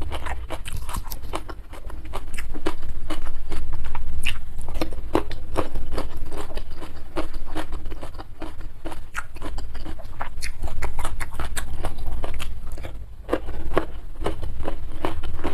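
Close-miked chewing of a rice meal: a dense run of wet mouth clicks and smacks, several a second, over a low steady rumble.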